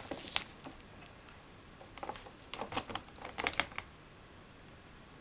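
Light crackling and crinkling of crisp packet packaging being handled, in scattered clicks: a few just after the start, then a quick cluster of them between about two and four seconds in.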